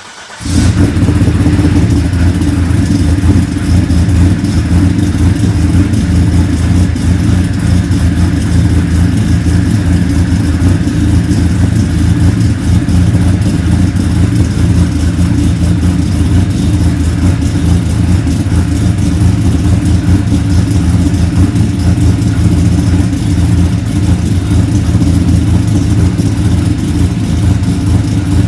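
Turbocharged Ecotec V6 (L67) starting about half a second in, then running steadily and loudly through a new exhaust with a second resonator fitted to cut its drone. It peaks at about 85 to 86 dB on a meter, down from 90.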